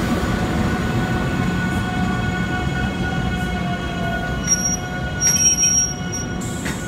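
South Shore Line electric commuter car rolling past close by on street-running rails: a steady rumble with faint whining tones, one dipping slightly in pitch around the middle. In the second half, high-pitched squeals from the wheels on the rails come and go.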